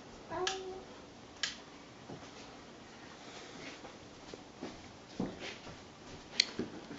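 Quiet room with a few sharp clicks and soft thumps; the loudest click comes about six and a half seconds in. A brief, short voice-like sound comes about half a second in.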